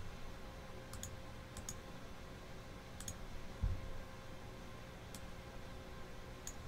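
About five sparse, sharp clicks at a computer, a second or two apart, over quiet room tone, with one dull low thump about three and a half seconds in.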